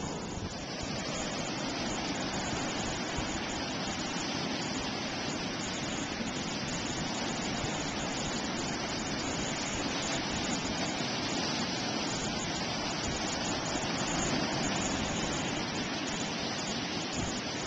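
Steady wash of ocean surf breaking on a sandy beach, an even, unbroken rush.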